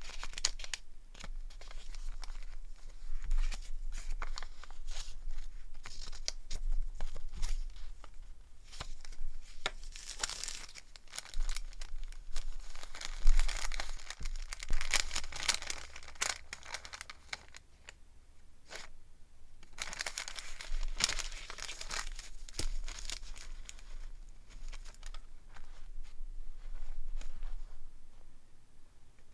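Scraps of paper (newspaper clippings, dried tea-bag paper and a kraft paper envelope) rustling and crinkling as they are handled, folded and gathered together, in irregular bursts with a short lull about two-thirds of the way through.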